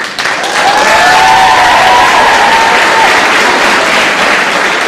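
Audience applauding, breaking out suddenly and loudly, with a long cheer sounding over the clapping for the first three seconds.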